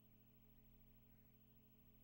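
Near silence: a faint steady low hum, with no distinct sound events.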